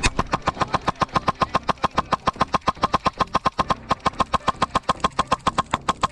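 HPA-powered airsoft SMG, a CYMA Platinum 9mm carbine with a Redline N7 engine, firing a long, steady string of sharp shots, about nine a second.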